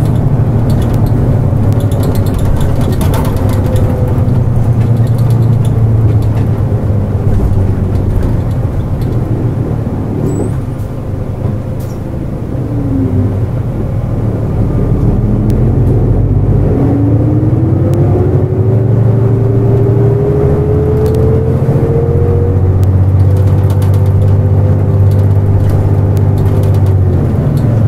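Nissan Diesel KL-JP252NAN city bus heard from inside while under way: a steady diesel drone. The engine eases off about ten seconds in, a whine falls, then climbs steadily in pitch as the bus pulls away and picks up speed, and holds near the end.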